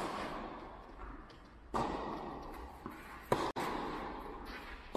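Tennis ball struck by a racket and bouncing, with a sharp hit at the start and two more sudden knocks a little under two seconds in and about three seconds in, each echoing in a large hall.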